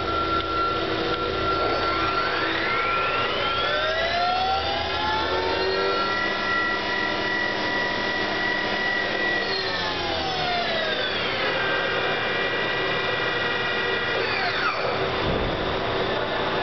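Mazak MTV-655/80 vertical machining center spindle running, a whine of several pitches. It climbs from about two seconds in to a steady high speed, drops about ten seconds in to a lower steady speed, then winds down again near the end.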